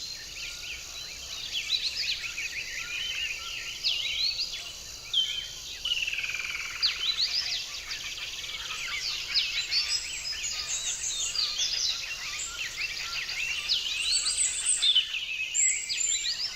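A chorus of many songbirds chirping and singing at once, quick high chirps and short upward sweeps overlapping throughout. About six seconds in, one longer trill slides downward in pitch.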